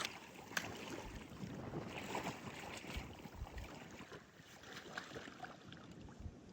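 Splashing and sloshing in ankle-deep floodwater, with scattered small splashes, and wind buffeting the microphone in low thumps.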